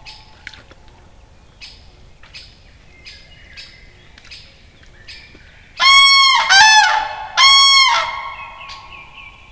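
Common cranes trumpeting: three loud, ringing calls about six seconds in, with fainter calls before them. These are cranes giving warning that the bog is their territory.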